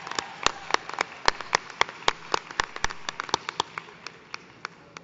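Audience applause, with loud single claps standing out at about four a second; the clapping fades away near the end.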